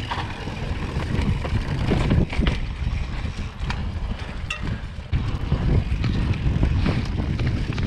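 Wind buffeting the microphone over the rumble of mountain bike tyres rolling down a dirt trail, with a few sharp clicks and knocks from the bike over bumps.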